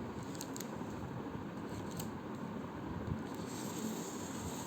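Scissors snipping open the packaging of a card order: a few faint, scattered snips.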